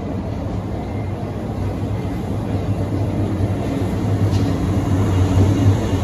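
A train rolling slowly past on the platform: an old passenger coach and then a blue electric locomotive. It makes a steady low hum that grows louder as the locomotive comes by in the second half.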